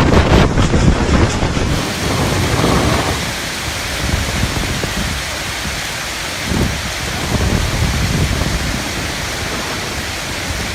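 Strong gusting wind of a sandstorm. Heavy buffeting on the microphone for the first two seconds, then an even rushing hiss.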